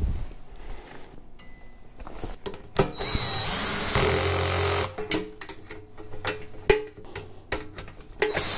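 DeWalt cordless drill driving a bolt into the metal track stand, running steadily for about two seconds midway. Around it come sharp clicks and clatter of sockets and metal parts being handled.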